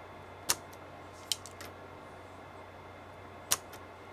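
Spring-loaded desoldering pump (solder sucker) being fired: two sharp snaps about three seconds apart, with a few lighter clicks between them, over a steady electrical hum.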